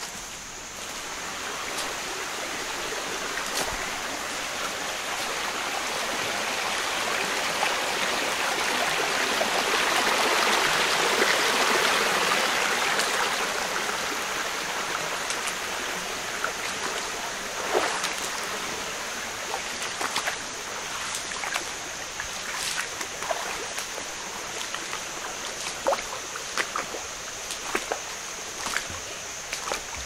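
Running water of a small jungle river, growing louder to a peak about ten seconds in and then easing off, with scattered sharp clicks in the second half.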